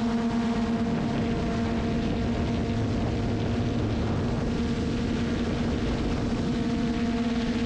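Multirotor drone's propellers and motors humming steadily at a constant pitch, with a rushing noise underneath.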